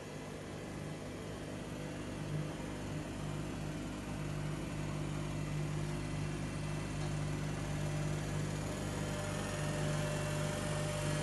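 A steady mechanical hum with a low drone, slowly getting a little louder.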